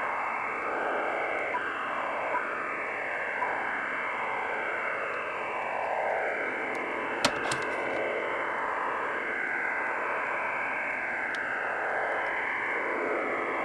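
Shortwave radio signal heard through an Icom 718 receiver: a hissing, whooshing noise whose tone sweeps down and up over and over, with a short static click about seven seconds in. The listener takes it for the HAARP transmitter in Alaska.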